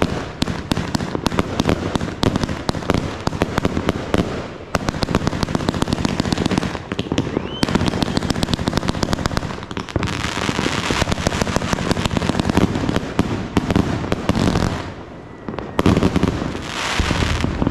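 Multi-shot consumer fireworks cake ('Piggy Bomb 300') firing in rapid succession: a dense stream of sharp pops and crackles. About 15 seconds in the shots briefly thin out, then pick up again in a final flurry.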